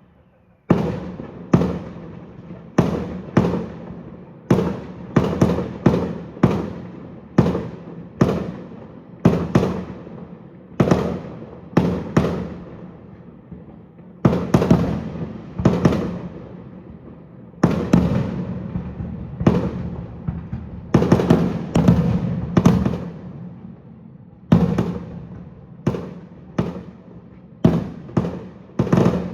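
Aerial fireworks shells bursting in quick succession, starting about a second in: sharp bangs, often two or three close together, each trailing off in an echoing rumble.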